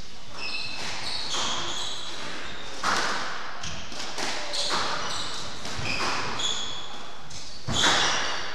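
Squash rally: the ball cracking off racquets and the court walls about once or twice a second, with short high squeaks from shoes on the wooden court floor. The loudest hits come near the end.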